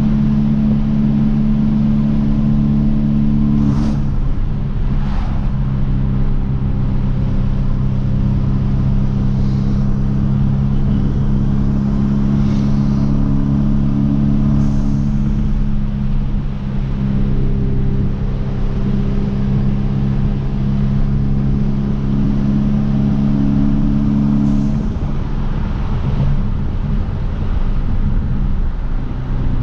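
Hyundai Veloster Turbo's 1.6-litre turbocharged four-cylinder cruising at steady revs, with the drone of its catless downpipe exhaust. The engine note shifts slightly about four seconds in and again near the end, and a few faint ticks come through.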